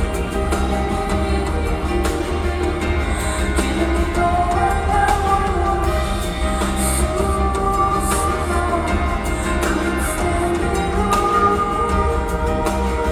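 Live band performing a pop-rock song, with a strong bass line and drum beat under sustained melodic parts.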